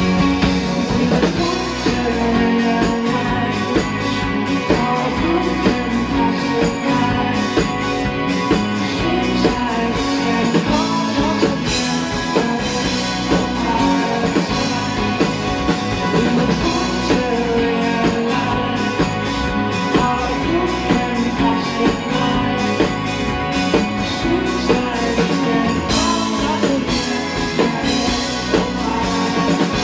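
Rock band playing live on drum kit, electric guitar and bass, with steady drum hits through the song.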